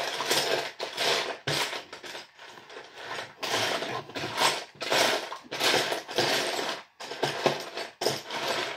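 Hands rummaging through plastic LEGO pieces, with rattling and rustling in a run of short bursts.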